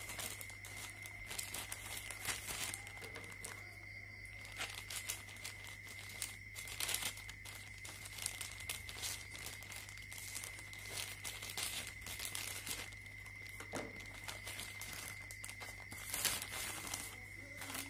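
Plastic mailer bag crinkling in irregular bursts as hands handle it, open it and reach inside, loudest near the end. A faint steady high tone and a low hum run underneath.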